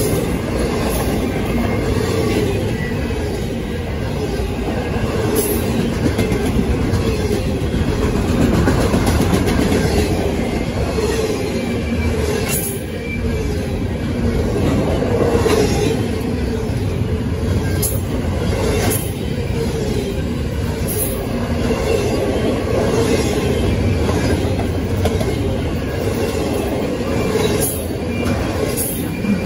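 Long freight train rolling past: steady rumble of steel wheels on rail, with scattered clacks over the rail joints and wheels squealing in wavering tones at times.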